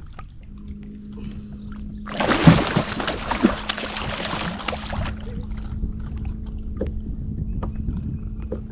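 A hooked catfish thrashing and splashing at the surface beside a kayak, from about two seconds in for about three seconds. A steady low hum runs under it.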